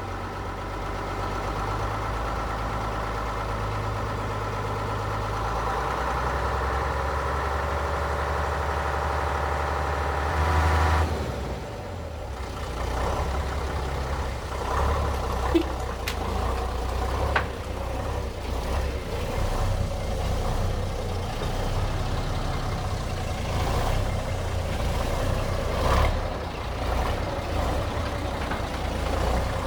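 FBW AX40 Swiss army truck's engine idling, left running to build up air pressure for its brakes and pneumatics before it can be moved. About eleven seconds in, the even engine note changes and turns rougher, with a few short sharp sounds over it in the second half.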